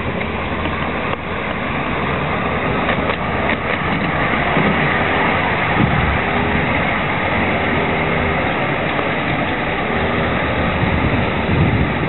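Ride-on miniature Intercity 125 model train running past on its track with passengers aboard, a steady running rumble that grows a little louder as it comes closest about midway, with a few clicks from the wheels on the rails.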